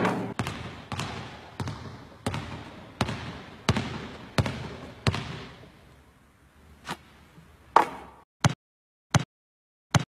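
A basketball being dribbled on a hard court, about nine echoing bounces in a steady rhythm of roughly three every two seconds. Then come a couple of softer bounces and three short, dry taps near the end.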